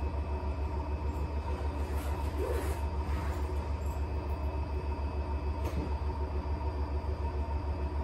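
Electrolux W75MP washer-extractor spinning its drum at high speed in the extended final extraction spin: a steady low hum that throbs evenly several times a second, with a faint steady whine above it.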